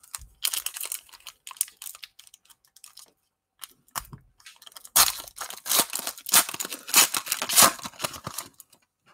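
A Panini Prizm basketball card pack's foil wrapper being torn open and crinkled by hand, in scattered bursts at first, then louder and denser over the last few seconds. There is a soft thump about four seconds in.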